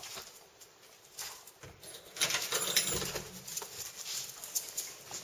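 Animals scuffling and moving about, with irregular pattering and rustling that is busiest about two seconds in.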